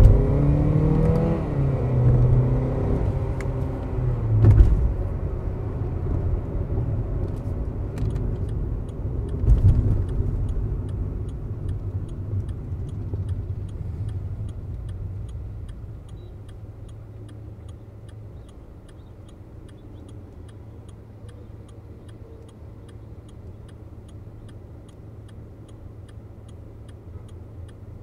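Volkswagen Vento TSI heard from inside the cabin: the engine pulls up through the revs in the first seconds, with two heavy thumps about four and a half and nine and a half seconds in, then the engine and road noise die down as the car slows to a stop. From about eight seconds in, the turn indicator ticks steadily.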